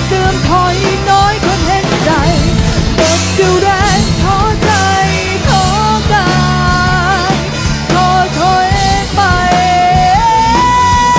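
Rock band playing live: a young woman sings the lead over distorted electric guitars, bass and a drum kit. Near the end she steps up to a long held high note.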